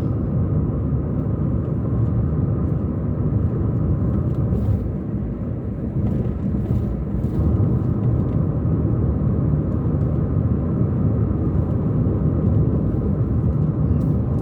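Steady road and engine noise of a car driving, heard from inside the cabin: a continuous low rumble of tyres and engine at an even level.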